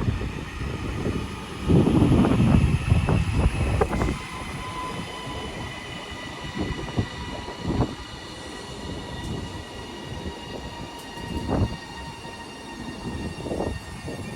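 Two coupled Class 331 electric multiple units pulling into the platform. A loud rumble fills the first four seconds, then it settles to steady high electric whines from the train with a few short knocks.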